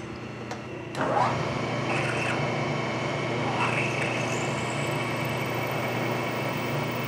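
Milling machine spindle running with a steady motor hum, and its cutter biting into a metal part: about a second in the noise gets suddenly louder as cutting begins, then goes on as a steady high-pitched cutting whine.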